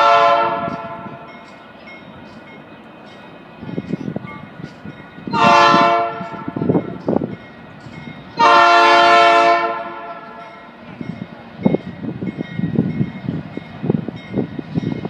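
Freight locomotive air horn sounding three blasts: a short one ending about a second in, another about five seconds in, and a longer one about eight seconds in. The low rumble of the approaching train grows near the end.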